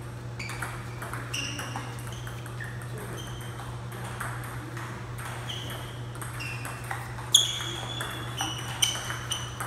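Table tennis ball being hit back and forth in a rally: a run of sharp, ringing clicks of the ball on paddles and table, starting about half a second in, with the hardest hit about seven seconds in. A steady low hum runs underneath.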